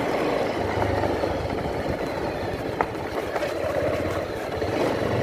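Motorbike engine running while riding along a road, a steady blend of engine and road noise, with one brief click a little under three seconds in.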